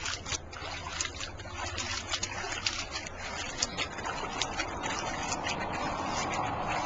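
Water splashing and dripping in a small inflatable paddling pool as a hand scoops and pours water, with many small sharp splashes. A steadier rushing of water builds from about four seconds in.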